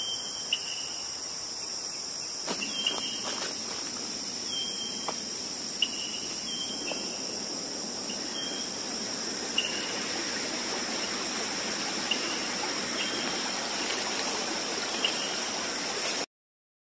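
Steady high-pitched drone of insects over the hiss of flowing stream water, with short faint chirps now and then and a few light clicks. It cuts off suddenly near the end.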